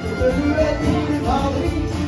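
Live folk music: strummed acoustic guitar with a wavering melody line carried over it.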